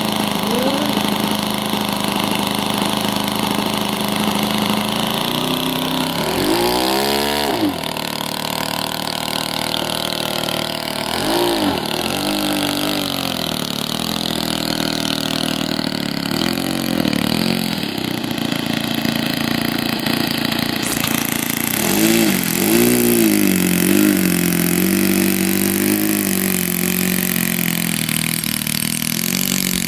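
YS-120NC glow engine of a large R/C warbird model running on the ground, idling steadily and then throttled up and back down several times, its pitch rising and falling with each blip.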